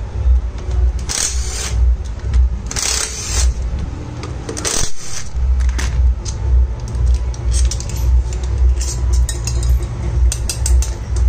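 Bosch 12V cordless impact driver running in three short bursts as it spins out the bolts of a Honda Activa scooter's transmission cover, followed near the end by metal bolts clinking as they are set down on a concrete floor. A low hum pulses underneath.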